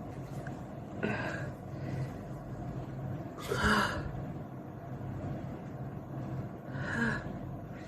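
A woman's short, breathy gasps and sniffs as a cotton swab tickles inside her nose, three of them with the middle one loudest, before the sneeze comes. A steady low hum runs underneath.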